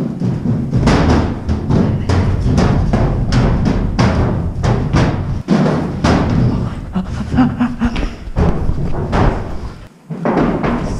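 Background music with a steady, heavy drum beat.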